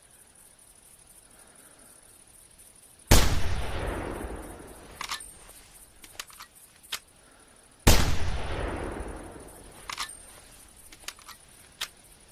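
Two Remington 700 bolt-action rifle shots about five seconds apart, each sharp report trailing off in a long echo. After each shot come a few short, sharp metallic clicks, the bolt being worked to chamber the next round.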